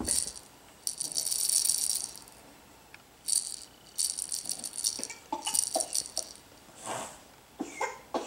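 Small toy rattle inside a yellow plush toy, shaken by hand in repeated short bursts, the longest lasting about a second.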